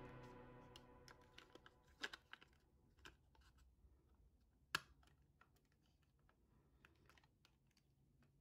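Faint, scattered small clicks and taps as a diecast model car's metal body shell and plastic interior parts are handled and fitted onto the chassis, with one sharper click about halfway through. The tail of background music fades out at the very start.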